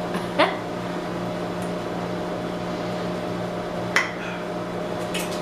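Steady hum of a household appliance running, with a short rising squeak about half a second in and a sharp click near four seconds.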